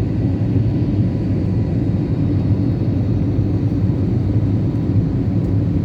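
Steady low rumble of an airliner in flight after takeoff, engines and airflow heard from inside the cabin, with a faint steady hum on top.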